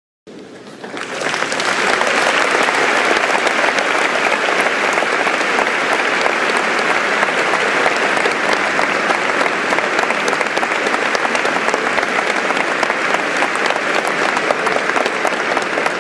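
Concert-hall audience applauding, swelling over the first second or so and then holding steady.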